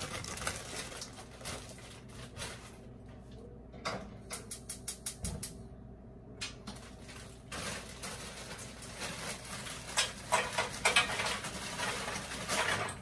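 Cookware and utensils clattering at a gas stove while food is put on to cook, with a quick, even run of clicks about four seconds in and busier clattering over the last five seconds.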